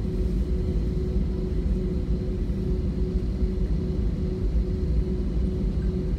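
Cabin noise of an Airbus A321-231 on the ground: its IAE V2500 turbofan engines running steadily, a low rumble with a constant hum.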